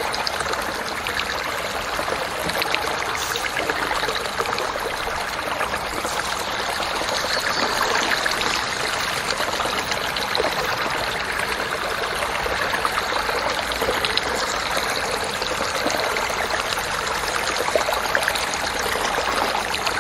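Muddy rainwater runoff rushing down a small earthen gully and pouring over a drop in a steady, splashing rush.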